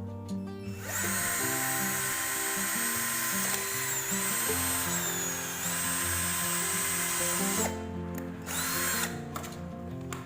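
Electric drill boring through a PVC pipe, its motor whine sagging in pitch midway as it bites, then stopping and running again briefly near the end. Light guitar music plays underneath.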